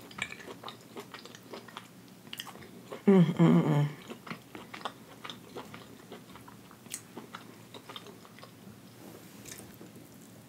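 Close-miked chewing of tender hibachi steak, with small wet mouth clicks and a fork picking at food in an aluminium foil pan. About three seconds in there is a short vocal sound from the eater, the loudest part.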